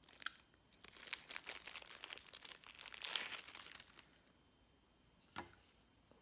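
Clear plastic packaging bag crinkling and crackling as it is opened and a camera neck strap is pulled out of it, for about four seconds. A single sharp click comes near the end.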